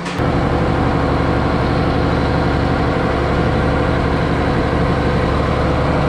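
Case tractor's diesel engine running steadily while it drives a Supreme vertical feed mixer through the PTO, mixing the cows' ration.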